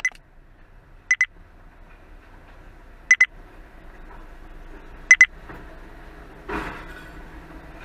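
Pairs of short, high electronic beeps repeating about every two seconds over the low running of a garbage truck. About six and a half seconds in, a brief clatter as a wheelie bin is lifted and tipped by the truck's rear lifter.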